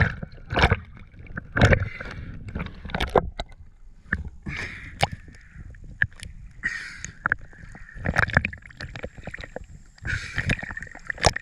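Water splashing and sloshing close to the microphone, with a splash every second or so.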